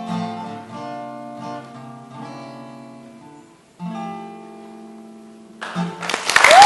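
Acoustic guitar playing the closing chords of a slow ballad, letting them ring and fade, with a brief pause before one last chord. Near the end, audience cheering and whistling breaks in and quickly grows loud.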